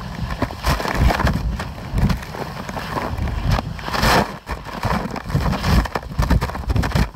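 Strong wind buffeting the microphone in irregular gusts, a low rumble with a brief louder rush of hiss about four seconds in.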